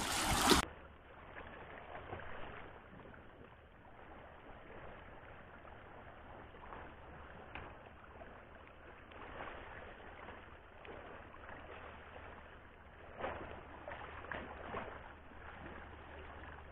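Faint seaside ambience of water and wind with a low steady rumble underneath, and a few short knocks and scrapes near the end.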